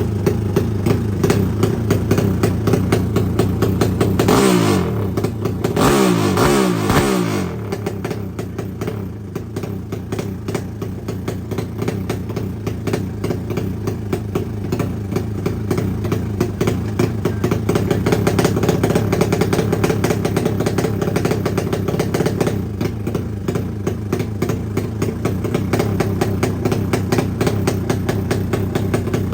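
Drag-racing motorcycle engine with an open racing exhaust, running at a fast, lumpy idle. It is revved up and down a few times between about four and seven seconds in.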